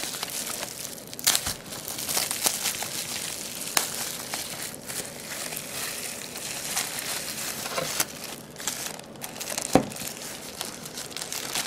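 Thin plastic bag crinkling and crackling as it is handled and pulled off a camcorder, with scattered sharp clicks and one louder sharp tap near the end.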